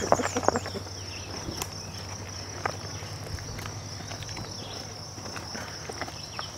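Insects in the woods buzzing in one steady, high drone, with light footsteps scuffing on a rocky dirt trail.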